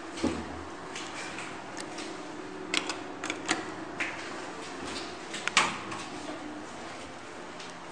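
Inside an old JUG freight elevator car: a faint steady hum with a series of sharp clicks, the loudest a little over halfway through, around the pressing of a floor button on the car's push-button panel.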